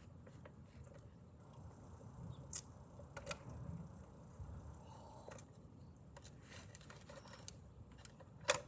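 Faint handling noises from unpacking a scooter: soft rustling with a few sharp clicks and knocks, the loudest about two and a half seconds in and another just before the end.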